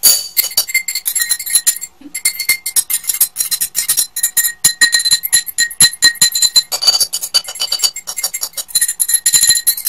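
Drinking glasses struck rapidly with metal cutlery, played like an instrument: a fast run of ringing clinks at a few different pitches, with a short break about two seconds in.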